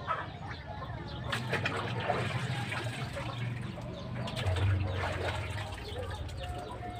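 Water splashing and dripping in a basin as a snakehead fish is lifted and handled, in irregular bursts strongest about a second and a half in and again near the five-second mark. Birds call in the background.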